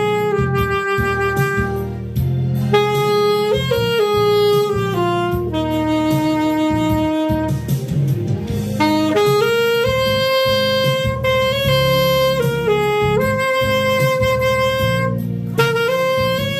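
Alto saxophone playing a slow melody of long held notes over a musical accompaniment.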